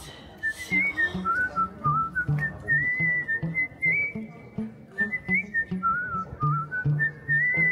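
Background music: a whistled melody over short, evenly paced bass notes.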